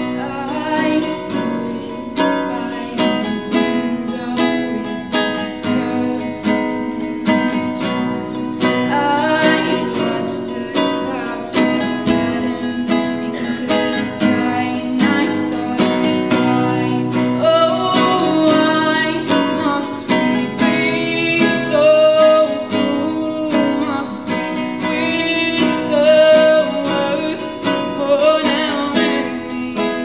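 A teenage girl singing a slow song while playing a nylon-string classical guitar, with plucked chords under her voice.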